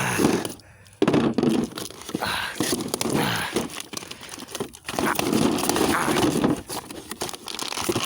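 Plastic packaging crinkling and tearing as it is cut and pulled open with a knife, in irregular rustling bursts.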